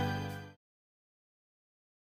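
Background music fading out about half a second in, followed by dead silence.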